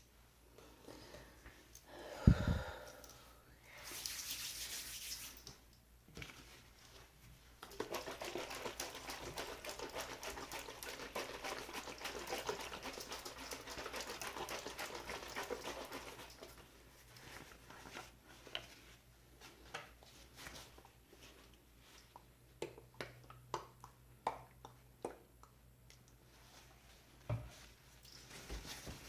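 Close-miked handling of props: a thump, a short hiss, a long dense crinkling rustle, then scattered light taps and clicks.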